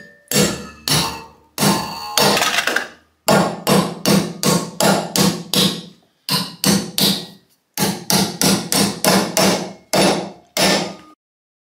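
Hammer blows on a flat metal bar clamped in a bench vise, bending it over the vise jaws into an L-shaped mounting bracket. Steady hammering, about two to three sharp blows a second with a few brief pauses, stopping abruptly near the end.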